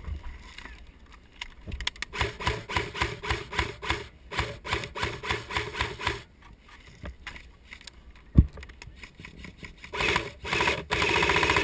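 Airsoft gunfire. A steady run of shots comes at about three or four a second, then a single sharp knock, and near the end a sustained full-auto burst of about two seconds.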